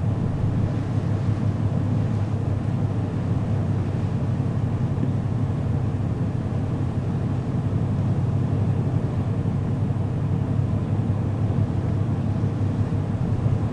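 Steady low drone of the ferry Aogashima-maru's engines running under way at sea, with a constant rush of wind and water noise over it.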